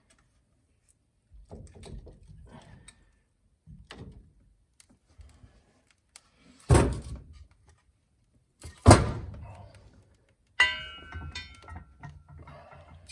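Firewood being placed into a fireplace: a few soft wooden knocks, then two loud thunks about two seconds apart as logs are dropped onto the grate. Near the end comes a short clatter with a ringing tone.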